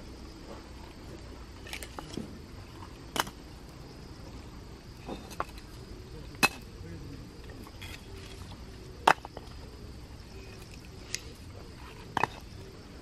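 Split firewood pieces knocking against each other as they are stacked by hand, about nine separate sharp wooden clacks spaced a second or two apart.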